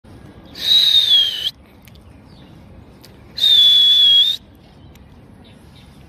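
A high whistle sounding twice, each blast about a second long with sharp starts and stops; the first dips slightly in pitch at its end, the second holds steady.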